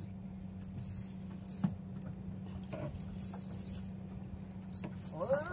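Scattered light clicks and rattles of a spinning reel and rod being worked while a hooked fish is fought, over a steady low engine hum.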